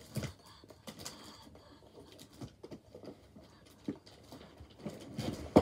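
Irregular soft taps, rustles and small knocks of a person moving about, with one sharper knock near the end.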